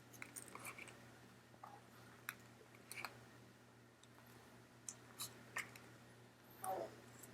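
Faint scattered clicks and taps of trading cards being handled and flipped through, with a short rustle a little before the end.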